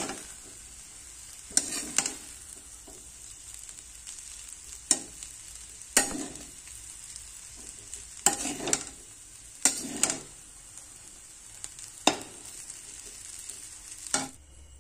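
Chowmein noodles sizzling in a kadai while a metal spatula stir-fries them, scraping and clacking against the pan in irregular strokes every second or two over a steady frying hiss.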